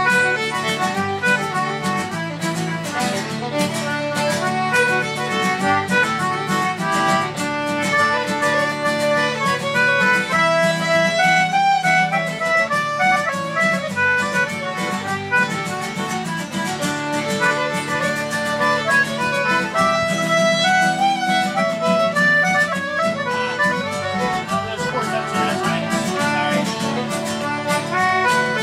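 A band playing an Irish-style folk tune: a melody running over steady held low notes, with no break.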